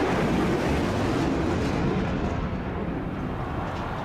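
Jet noise of a Su-30 MKI fighter's twin turbofan engines flying past at high speed: a broad rushing noise that slides lower in pitch and slowly fades.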